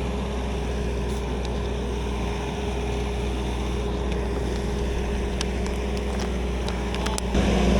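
Skid steer's engine running steadily with a low, even hum and a few faint clicks, growing louder near the end.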